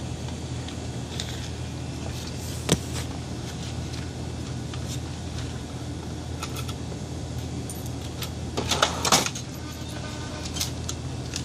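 Steady low hum of a shop's room tone, with a single sharp click about three seconds in and a brief clatter and rustle near the end.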